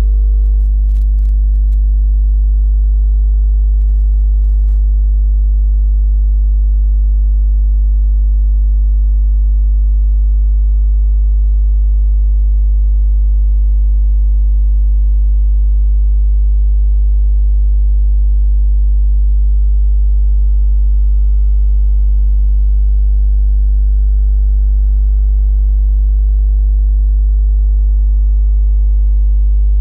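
A loud, steady, deep electronic hum with several fixed tones above it, unchanging throughout, with a few faint clicks in the first few seconds.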